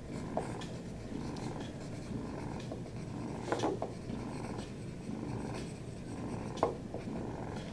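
A domestic cat purring steadily close to the microphone, with pencil scratching on paper and a few short clicks.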